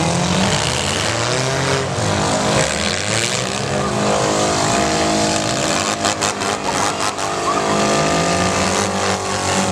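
Several demolition derby cars' engines revving hard, their pitch rising and falling, with a run of sharp crashing impacts about six to seven seconds in and another near the end as the cars collide.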